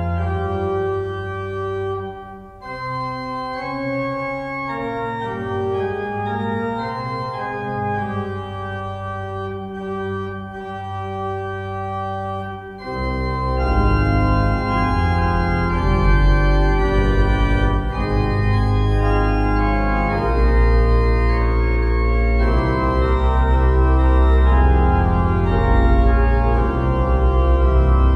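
Organ music: sustained chords that change every second or so. About halfway through, deep bass notes come in and the music grows louder.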